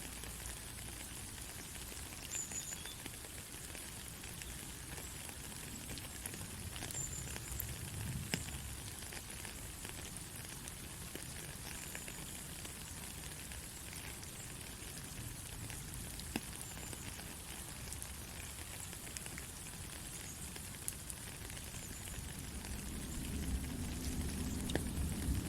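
Steady soft rain: an even hiss with scattered ticks of individual drops. A low rumble builds near the end.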